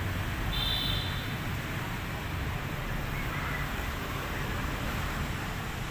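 Steady outdoor background rumble and hiss, with a short high-pitched chirp about half a second in.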